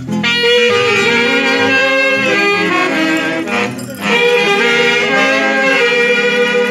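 Festival band music led by wind instruments playing a melody together over a low accompaniment, with a brief break about three and a half seconds in.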